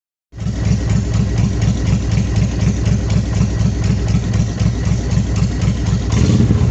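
Honda VTX1300S V-twin engine idling with an even, pulsing beat, running cold on the choke. It cuts in abruptly just after the start and gets a little louder near the end.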